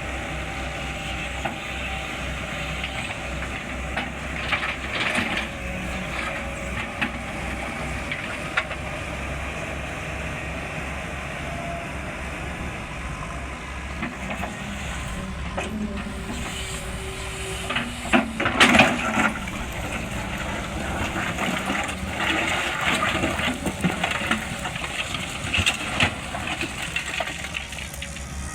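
Sany 210 excavator's diesel engine running steadily, with hiss and scattered knocks from the machine at work. A louder burst of knocks comes about 18 to 19 seconds in.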